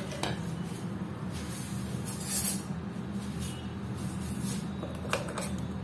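Light clicks and knocks of a plastic mixer-grinder jar lid and steel jar being handled, a few sharp ones at the start and again about five seconds in, with a brief rustle about two seconds in, over a steady low hum.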